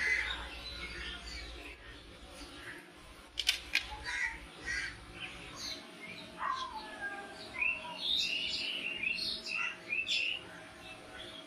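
Birds calling and chirping, with a falling call about six and a half seconds in and a quick run of chirps near the end. A sharp click sounds about three and a half seconds in.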